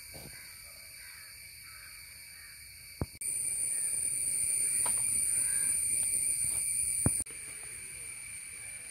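Steady high-pitched insect drone, much louder for about four seconds in the middle, starting and stopping abruptly. Two sharp knocks mark the start and end of the loud stretch.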